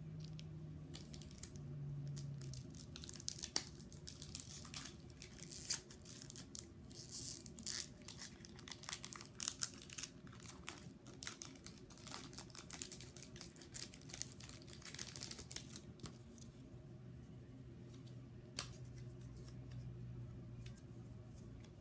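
A foil Pokémon booster pack wrapper crinkling and being torn open, with cards rustling as they are handled. The crackling is thickest from about six to sixteen seconds in.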